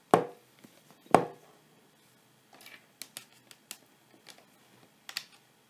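Two sharp knocks about a second apart, then faint clicks and rustling of a cable being handled as a USB plug is fitted.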